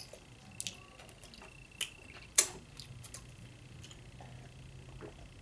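Mouth sounds of eating Doritos nachos close to the microphone: a handful of separate sharp crunches and snaps, the loudest about halfway through. Near the end, quieter sips from a plastic cup.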